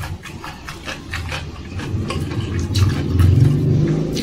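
Eating sounds, wet chewing and lip smacks, while a low droning hum swells in about halfway through and becomes the loudest sound.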